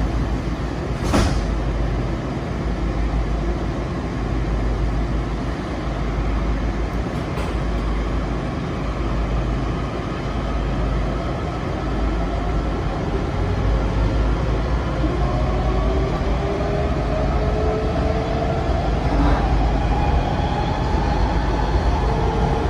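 Metro railcar pulling out of a station: a steady rumble of the running train inside the car, with a sharp click about a second in. Through the second half a motor whine rises in pitch as the train picks up speed.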